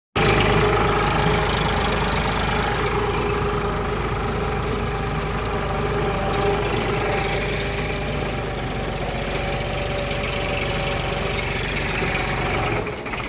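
Tractor engine running steadily at an even speed, with a seed drill in tow; the sound drops off near the end.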